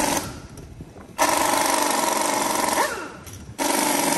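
Impact wrench running on wheel lug nuts in repeated hammering bursts of one to two seconds, each stopping abruptly and followed by a falling whine as the tool spins down.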